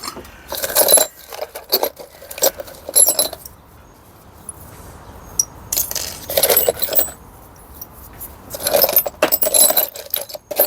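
Metal tools and gearbox parts clinking and rattling as they are handled. Several bursts of clinks with a bright metallic ring, the busiest about six seconds in and again near the end.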